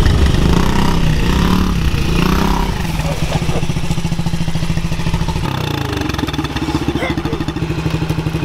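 Small youth dirt bike's single-cylinder engine running as the bike rides up, then idling with an even putter from about three seconds in.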